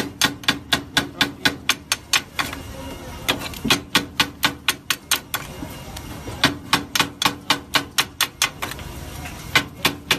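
Metal scraper striking a flat steel griddle in quick runs of sharp clacks, about five a second, with two short pauses: meat filling being chopped and scooped on the griddle.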